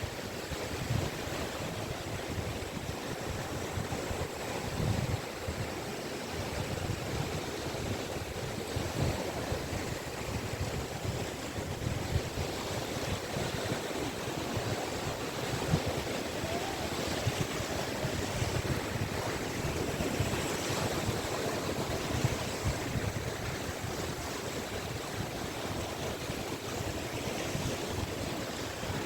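Caspian Sea waves breaking and washing on the beach, a steady surf with gentle swells and small splashes, with some wind on the microphone.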